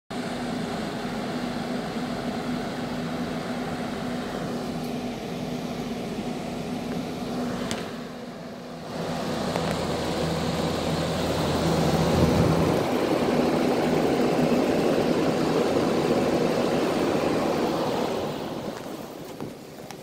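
Older packaged terminal heat pump (PTHP) running: its compressor's steady hum under the airy rush of the outdoor condenser fan. The sound grows louder about nine seconds in and drops off over the last two seconds.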